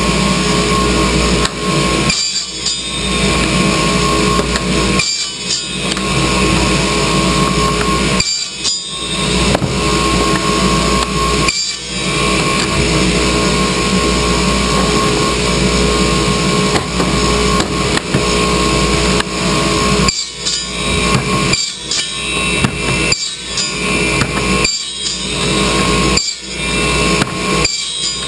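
RIDGID radial arm saw running, its spinning blade pulled through white plastic pipe in repeated cuts. It is a loud, steady motor whine with brief dips every few seconds.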